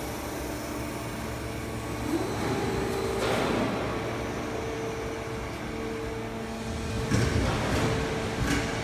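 Sound barrier panel roll forming line running, a steady machine hum with a low drone and a held mid-pitched tone. A few brief louder noises break in about three seconds in, again about seven seconds in, and just before the end.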